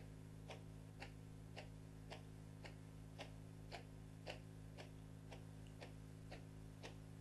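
Faint footsteps, evenly paced at about two short, sharp steps a second, over a steady low hum.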